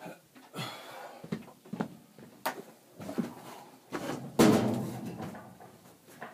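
A run of knocks and clatters, like things being handled or bumped, with the loudest bang about four and a half seconds in.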